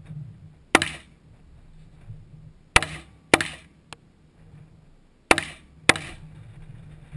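Semi-automatic rifle shots from AK-47 and AR-15-type rifles, fired singly, five in all. One sharp crack comes about a second in, then two in quick succession near the middle, then two more near the end.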